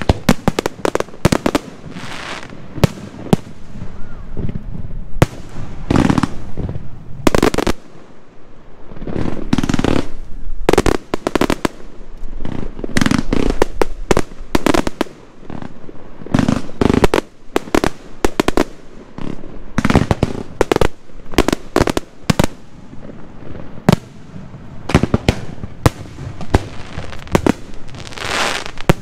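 Aerial firework shells bursting in rapid succession: sharp bangs, several a second and some in quick clusters, with stretches of crackle from the bursting stars.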